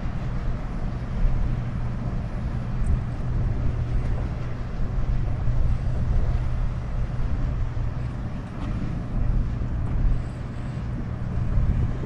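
Wind buffeting the microphone outdoors: a steady low rumble that rises and falls, with no siren tone.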